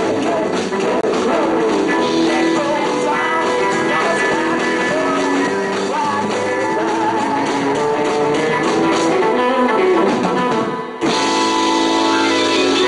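Live rock band playing an up-tempo song, with a short stop about eleven seconds in before the band comes back in.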